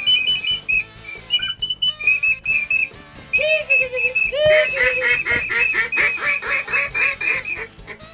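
Duck quacking: a rapid run of about a dozen falling quacks in the second half, about four a second, over repeated short, high whistle-like notes.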